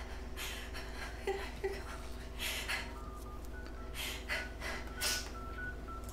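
A person breathing heavily in gasps, each breath a short rush of air about a second apart, under faint high sustained music notes in the second half.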